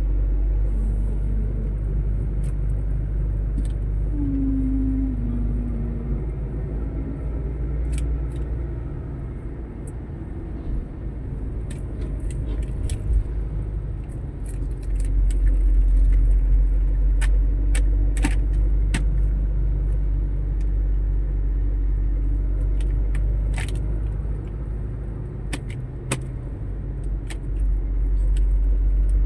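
Steady low rumble of a motor vehicle on the move, with scattered sharp ticks and clicks; the rumble swells for a stretch in the second half.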